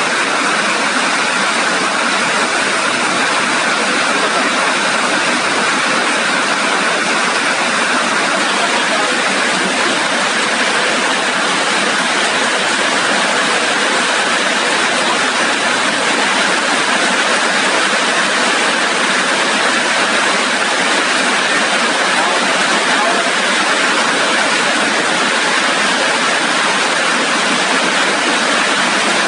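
Rain falling steadily, an even unbroken hiss of water with no single drops standing out.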